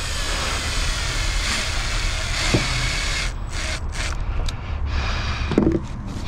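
A vehicle engine running steadily, with a loud hiss of air over it for about the first three seconds that then cuts off, and a couple of short knocks.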